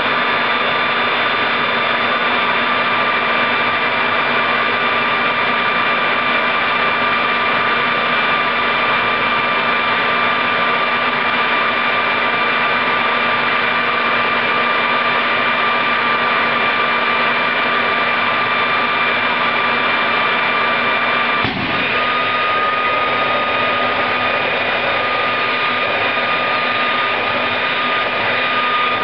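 Homemade turbojet built from a Caterpillar turbocharger running steadily: a loud rush of air with a high, steady whine. About 21 seconds in there is a brief pop, and the whine then settles a little higher in pitch.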